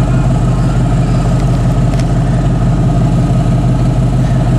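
Truck engine running steadily while driving: a constant, even low drone with no change in pitch.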